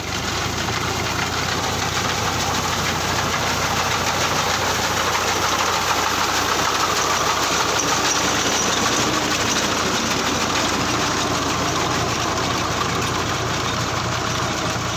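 New Holland 480 tractor's diesel engine running steadily at working speed while its mounted reaper cuts standing wheat.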